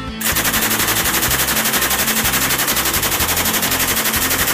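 PKM machine gun (7.62×54mmR) firing one long full-auto burst from a tripod, starting about a quarter second in, at about eleven shots a second.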